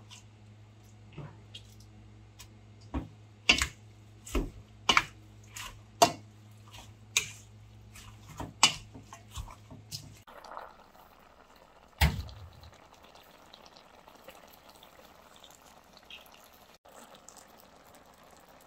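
Marinated webfoot octopus, onion and spring onion being hand-mixed in a stainless steel bowl with a plastic spatula: wet squelching and sharp clacks at irregular intervals over a low steady hum. The hum stops abruptly about ten seconds in, followed by a single knock and faint background noise.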